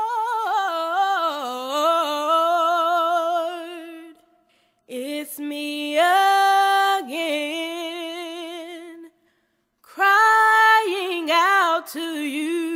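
A woman singing a gospel song unaccompanied, in three long held phrases with vibrato and short pauses for breath between them.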